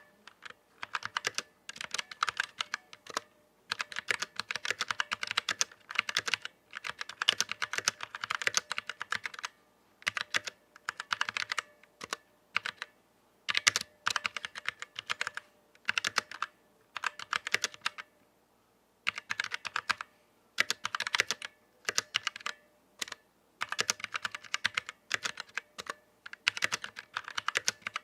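Typing on a Vortex Series VX7 mechanical keyboard with stock Outemu Brown tactile switches: fast runs of key clacks in bursts of a second or two, broken by short pauses.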